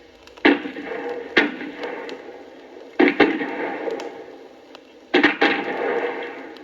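Gunfire on a war sound-effects recording: sharp shots, single and in quick pairs, each trailing off in an echo that lasts about a second.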